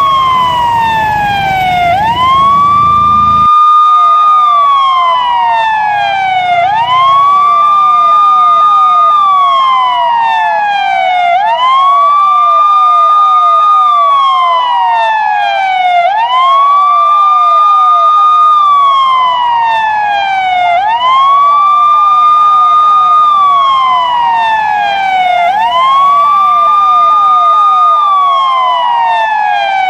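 Police siren wailing in a slow cycle: each cycle rises quickly in pitch, holds briefly at the top, then slides down slowly, repeating about every four and a half seconds. A low rumble underneath cuts off suddenly about three and a half seconds in.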